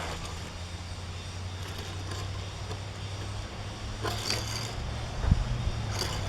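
A few soft, brief scrapes and one short knock from a small diecast toy truck and its plastic track being handled, over a steady low electrical hum.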